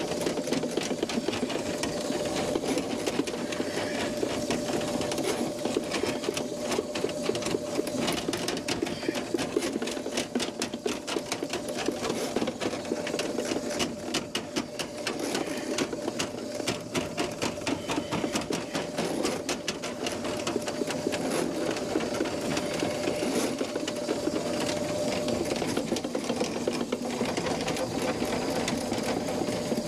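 Drill-driven flexible-shaft drain cleaner, a Ridgid K9-204, running steadily with its cable whipping and rattling inside a clogged kitchen sink drain line.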